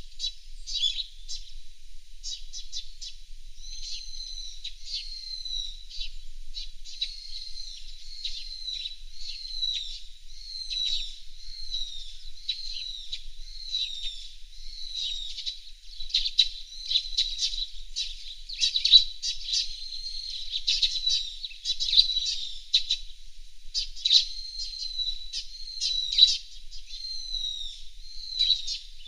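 Fairywrens singing and chirping continuously: high-pitched twittering with short downward-sliding notes repeated about every half second, and some louder notes in the second half.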